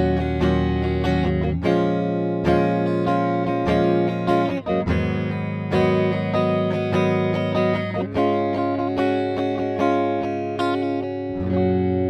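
Sterling SUB AX3 electric guitar played with a clean tone, picked notes and chords ringing, with the five-way selector in the third position mixing the humbuckers. A last chord is struck near the end and left to ring.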